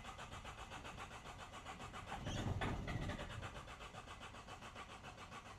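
Mercedes Sprinter OM651 diesel engine being cranked on the starter in even, rapid pulses, growing louder for about a second midway, but not firing. The engine is a no-start after injector work, cranked while the diagnostic tool has the high-pressure pump build rail pressure to push trapped air through the Delphi injectors.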